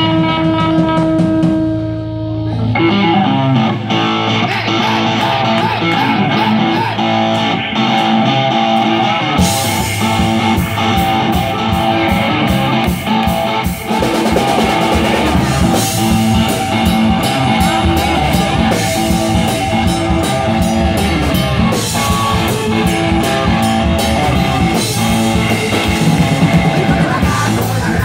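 Live rock band with electric guitar, bass guitar and drums playing loudly. A held note rings out for the first couple of seconds, then the guitars break into a riff, and the drums with cymbals join about nine seconds in.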